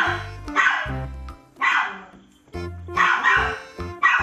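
Upbeat background music with a steady bass line, with short bark-like yelps recurring in time with the beat.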